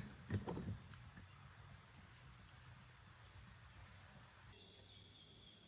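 Quiet outdoor forest ambience at dusk, with a brief low murmur of a man's voice about half a second in. A faint, steady, high note comes in near the end.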